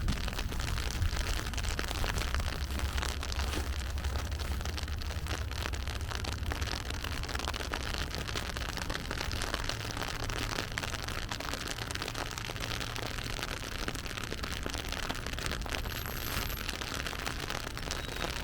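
Steady rain falling in a city street, a dense patter of fine drops, over a low rumble that eases after about twelve seconds.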